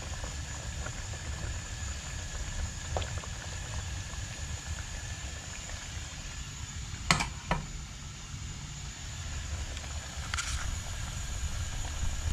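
Steady low rumble of a lit stove burner under cooking pots, with two sharp clinks about seven seconds in.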